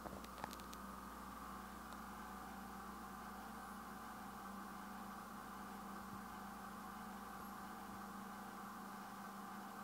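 Faint steady hum and hiss of room tone, with a couple of faint clicks just after the start.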